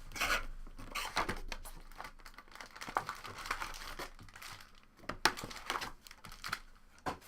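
Trading-card pack wrappers crinkling and tearing as packs are opened, with irregular crackles and small clicks.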